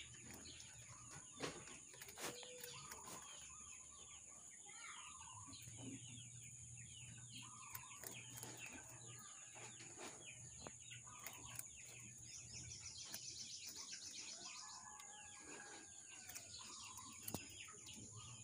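Faint, rapid crunching of white rabbits gnawing raw sweet potato, with fowl clucking now and then in the background and a steady high-pitched whine.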